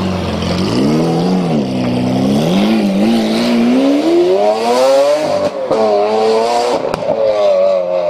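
Lamborghini Aventador's V12 engine revving and then accelerating hard away, its pitch climbing steadily. Near the end it drops sharply twice at upshifts and climbs again after each.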